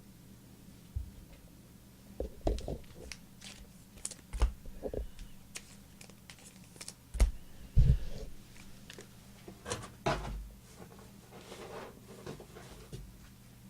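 Trading card packs and cards being handled on a table: irregular taps and knocks with short crinkly rustles. Two sharper knocks just past the middle are the loudest, over a faint steady hum.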